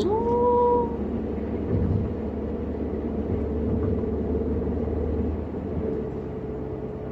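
Car cabin noise while driving: a steady low rumble of engine and tyres on the road. In the first second a single tone slides up and then holds briefly.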